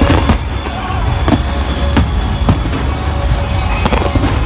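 Aerial firework shells bursting overhead in a string of sharp bangs, about seven in four seconds, over a continuous low rumble, with music playing underneath.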